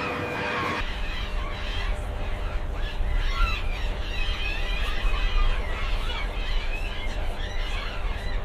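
Many gulls calling, with a steady low rumble starting about a second in.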